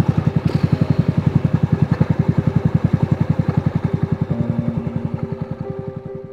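Small off-road buggy engine idling with an even, rapid chug of about a dozen beats a second, slowly fading out. Soft sustained music notes come in about two-thirds of the way through.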